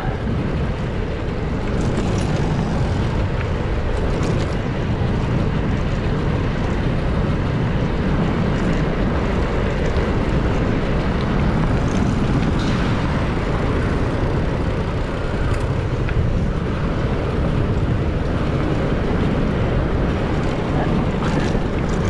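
Steady wind and road noise from riding an electric cargo bike over wet asphalt. It is picked up by a GoPro microphone muffled under a foam Windslayer wind cover, so it comes through mostly as a low rumble.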